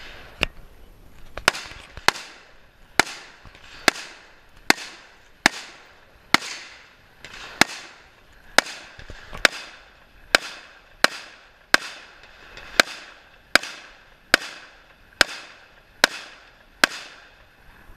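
Rifle shots fired at a steady pace, about twenty in a row, roughly one every second, each followed by a short echo.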